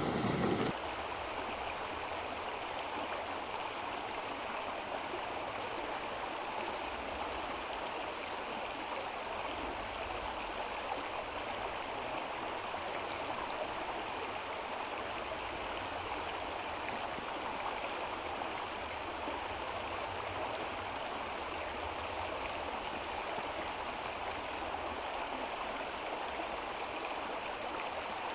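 Steady rushing and gurgling of a flowing stream. A louder, deeper rush cuts off abruptly less than a second in.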